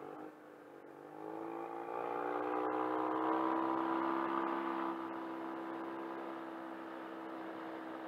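Yamaha TMAX 500 maxi-scooter's parallel-twin engine accelerating: its pitch climbs over the first two or three seconds, then holds steady while the throttle stays open, easing off a little about five seconds in.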